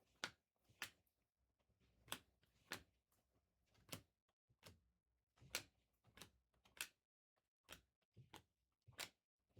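Faint, irregular clicks and ticks, about one or two a second: Topps Chrome trading cards being handled and flipped one by one.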